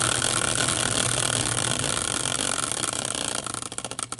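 Hand-spun prize wheel made from a caster wheel on a steel bracket, whirring fast with a dense rattle. Near the end it breaks into separate clicks that slow as the wheel coasts down to a stop.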